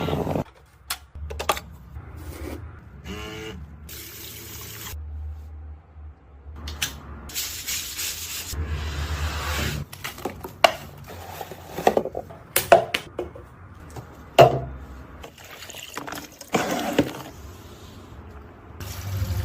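Water running and filling, with a series of separate clicks, knocks and clinks of things being handled.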